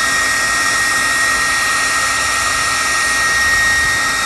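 Handheld electric hot-air blower running steadily: a rush of air with a steady high motor whine. It is drying freshly airbrushed paint on a crankbait.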